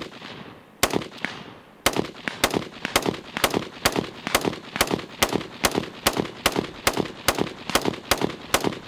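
AR-pattern rifle firing .300 Blackout rounds one after another, fired by turning an FG-15 trigger crank. Two shots about a second apart, then a steady cadence of about two shots a second.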